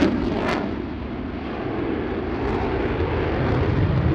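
Lockheed Martin F-35A Lightning II's Pratt & Whitney F135 afterburning turbofan in a hard turn with afterburner lit: a deep rumble with sharp crackles, the last about half a second in. It then eases to a steadier, lower rumble that builds again toward the end.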